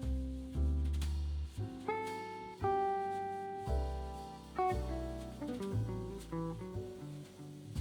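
Background music: plucked guitar over a bass line, in a relaxed jazz style.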